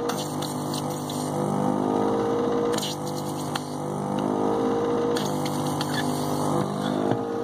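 Handheld desoldering gun's vacuum pump running as it sucks old solder out of the circuit board's holes: a steady motor hum whose pitch shifts slightly, stopping and restarting with a click about three seconds in and again about five seconds in.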